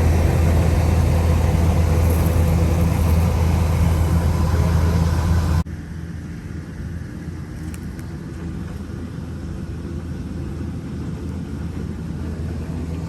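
Kubota DC-105X combine harvester running with a steady low drone. About five and a half seconds in the sound drops abruptly to a quieter, steady running.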